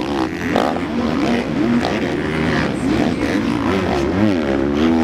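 Motocross bike engines revving up and down as the bikes ride over the jumps, the pitch rising and falling again and again.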